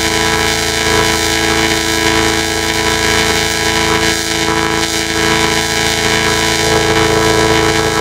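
A McDonald's ad-outro jingle run through a heavy distortion effect chain, turned into a loud, dense, horn-like drone of many stacked steady tones with little change throughout.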